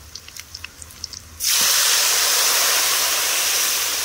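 Masala going into hot oil in a cooking pan: a few light clicks of a spoon, then about a second and a half in a sudden loud sizzle that holds and slowly eases.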